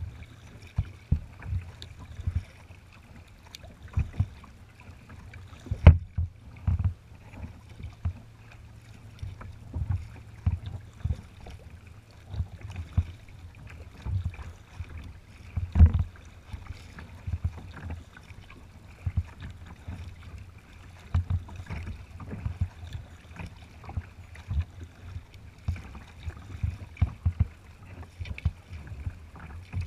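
Water slapping and splashing against a kayak's bow as it moves through light chop, heard through the deck as irregular low thumps, the loudest about 16 seconds in.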